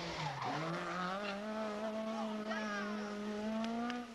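Talbot Samba Rallye rally car's engine running hard at high revs through a bend. The revs dip briefly about half a second in, then hold steady and climb slowly.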